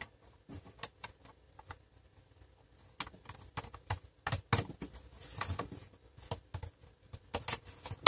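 Scattered light plastic clicks and taps as small plastic feet are handled and pressed back onto a laptop's plastic base, with a few sharper clicks midway and near the end.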